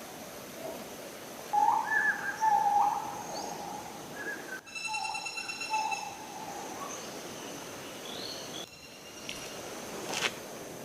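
Birds calling in forest: a few short loud calls about two seconds in and again around six seconds, over a steady high-pitched tone and background hiss.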